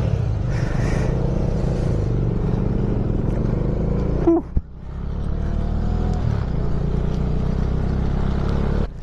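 Motorcycle engine running under way, with wind rushing over the helmet microphone. About four and a half seconds in the sound briefly drops away, then builds back up to a steady run.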